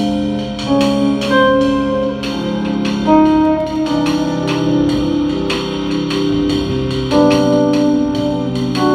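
Live jazz fusion band playing. Sustained electric keyboard chords change every second or two over electric guitar, electric bass and light drums.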